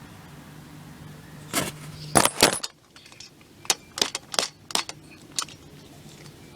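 Metal swing-set hardware (bolts, nuts and fittings) clinking and knocking as it is handled: a loud cluster of three clinks about two seconds in, then about five lighter ones over the next three seconds.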